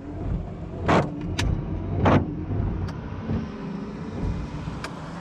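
Windshield wipers of a 1982 Ford F150 sweeping across the wet glass, driven by the wiper motor under a junkyard wiper control module that is working, with two louder swishes about a second apart.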